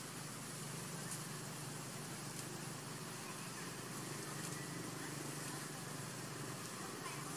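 Steady outdoor background noise: a constant low hum under an even hiss, with a few faint clicks.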